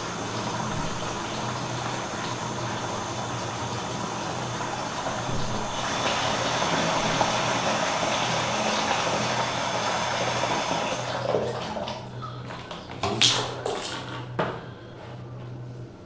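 Water running from a bathtub tap into a plastic basin, a steady splashing that grows louder about a third of the way in. The flow stops about three-quarters of the way through, followed by a few sharp knocks and bumps.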